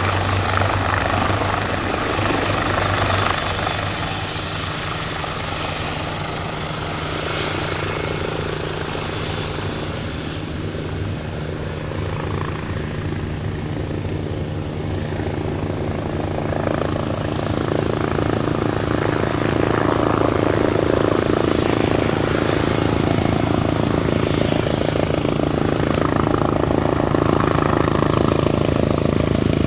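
Turbine helicopter running, its rotor and engine noise carrying a thin, steady high-pitched turbine whine that drops slightly in pitch about three seconds in. The sound eases off, then grows louder again from about seventeen seconds in.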